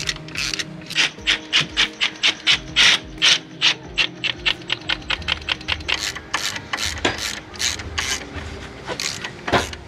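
Socket ratchet wrench being worked in quick strokes, each swing a short burst of pawl clicking, about four to five a second. A faint low rumble comes in about halfway through.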